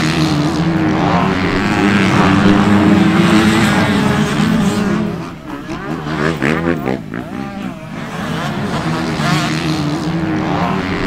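Motocross bikes racing on the track, their engines running hard with a steady drone for the first few seconds, then revving up and down as they change speed through the middle.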